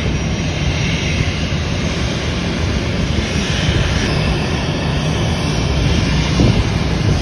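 Air Canada Rouge jet airliner's engines running with a steady, loud noise.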